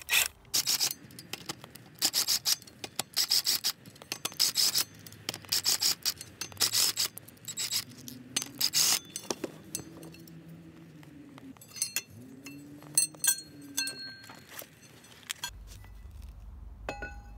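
Cordless impact driver hammering in a series of short bursts on the rusty 12-point flexplate bolts of a Honda K24A engine. After about 8 seconds its motor spins up and down between light metallic clinks of bolts and socket.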